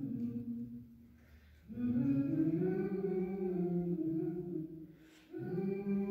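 A small group of voices singing a cappella in long held notes, several pitches sounding together. One phrase fades out about a second in, a new one swells up shortly after, and after a brief pause near the end another begins.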